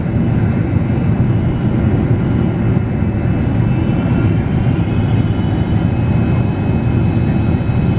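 Steady cabin roar inside a Boeing 777-300ER airliner, heard from a seat ahead of the wing: deep airflow and GE90 engine noise. A few faint high engine tones come in about halfway through and hold.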